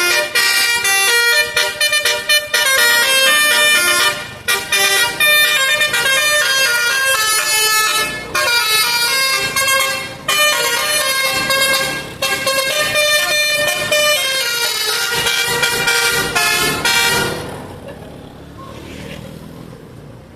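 Basuri telolet multi-trumpet air horn on a bus, playing a loud tune of quickly changing notes in phrases with short breaks. It stops about seventeen seconds in, leaving quieter background noise.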